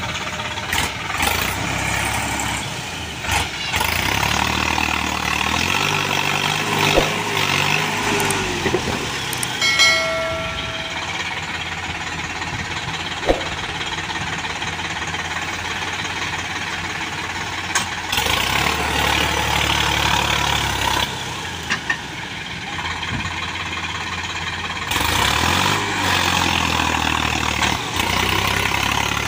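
Diesel engines of a Sonalika tractor and a JCB backhoe loader running under load as the backhoe pushes the mud-laden trailer. The engine note rises and falls several times, loudest in the last few seconds, with a brief high steady tone about ten seconds in.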